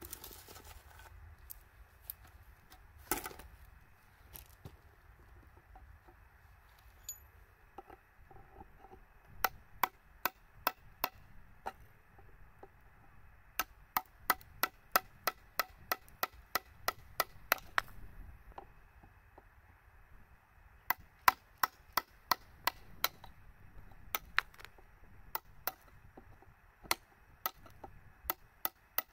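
Hammer tapping a chisel into wood: sharp, even strikes in several runs of about three a second, with short pauses between the runs.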